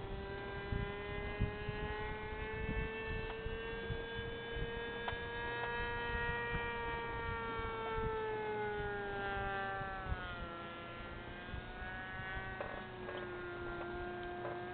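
Seamaster RC float plane's small engine screaming at high revs in flight: one high pitched whine that rises slowly for several seconds, drops over a couple of seconds past the middle, then holds at a lower pitch.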